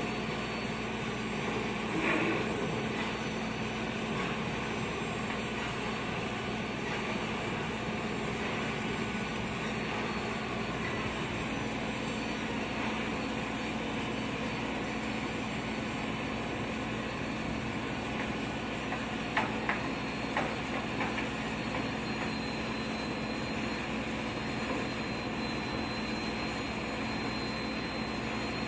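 Steady drone of the engine of the cargo-loading machinery moving the load into the aircraft, with a constant low hum and a few faint knocks about two seconds in and again around twenty seconds in.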